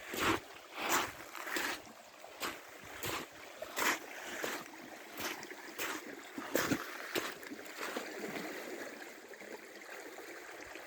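Rainwater runoff rushing along in a current, a steady rushing noise with irregular surges, more frequent in the first half.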